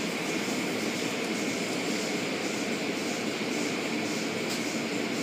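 Automatic car wash running, heard from inside the car's cabin: a steady rush of water spray on the glass and body with the wash machinery and cloth strips working.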